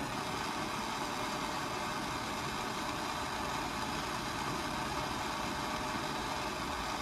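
Hand-held gas torch burning with a steady hiss, its flame heating a car thermostat to test whether it opens.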